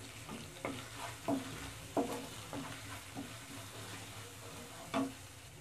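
Wooden spatula stirring and scraping onions and spices frying in oil in a non-stick pan, with a light sizzle. Several short scrapes, the strongest about two seconds in and near the end.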